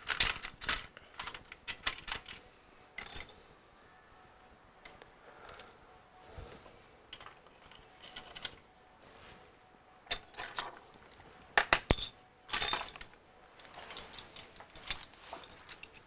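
Scattered metallic clicks and clinks of a small precision screwdriver being handled and set down on a workbench, in several short clusters with the loudest about two thirds of the way through.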